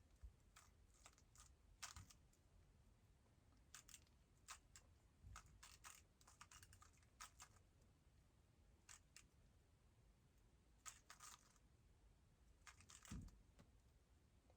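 Faint clicking and clacking of a Moyu WRM 2020 3x3 speedcube's layers being turned by hand, in short irregular runs of turns with pauses between them.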